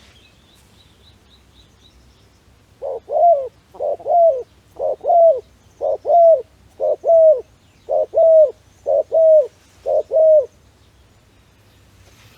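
A dove cooing: eight low two-note coos, a short note then a longer falling one, about a second apart, starting about three seconds in. Faint high chirps of a small bird come before it.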